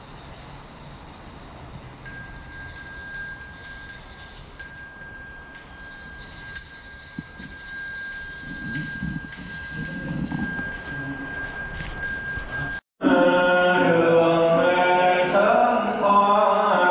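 Metal chak-pur sand funnel rasped with a rod, giving a bright metallic ringing broken by quick scraping strokes as the coloured sand trickles out. Near the end it cuts off suddenly and chanted mantra with music takes over.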